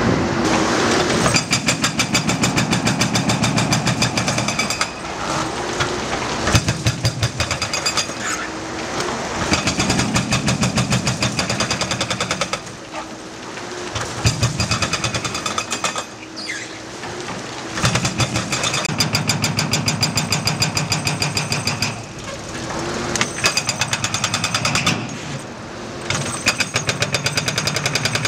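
Hydraulic breaker on a Cat 314D LCR excavator hammering the bridge deck pavement in rapid, even blows. The blows come in bursts of a few seconds with short pauses, where the excavator's diesel engine is heard running on its own.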